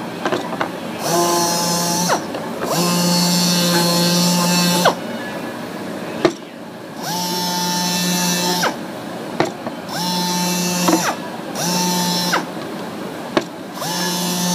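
A small power tool, such as a drill or sander, run in six short bursts of one to two seconds each, its motor spinning up at the start of every burst and winding down at the end, with a hiss over it; a few sharp clicks fall between the bursts.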